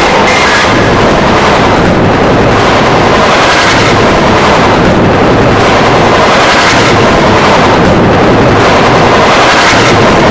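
A remixed sneeze sample, heavily distorted into a loud, dense wall of noise that holds one level.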